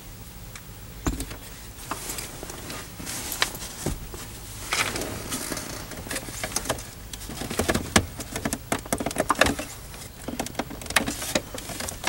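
Upper plastic steering-column shroud being wiggled and worked loose by hand: irregular plastic clicks, knocks and scrapes against the column, busiest in the second half.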